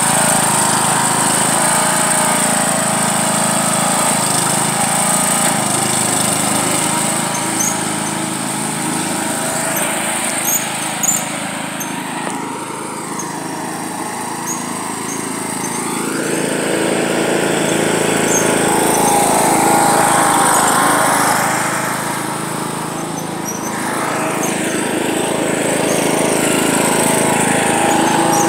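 Riding lawn mower engine running steadily (a John Deere lawn tractor). It grows fainter about a third of the way in as the mower moves off across the lawn, then louder again past the middle as it comes back.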